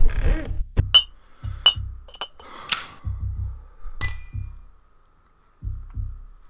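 Horror intro sound effects: several sharp clinks with short ringing, followed by slow pairs of low thumps, over a faint steady high tone.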